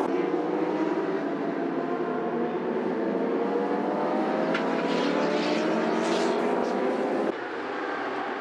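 Racing motorcycle engines at high revs as superbikes pass on the track, several engine notes rising in pitch as they accelerate. About seven seconds in the sound drops suddenly to a quieter engine noise.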